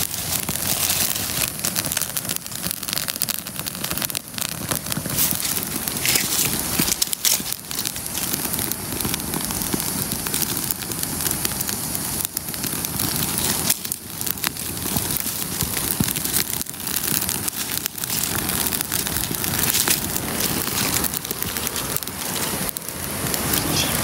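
Dry oak and bay leaves catching and burning in a freshly lit campfire lay of stacked sticks: a steady, dense crackling full of small irregular snaps as the flames spread through the tinder.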